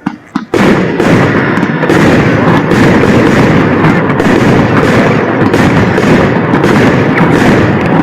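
Fireworks going off: two or three sharp bangs, then from about half a second in a loud, dense, continuous barrage of bangs and crackling.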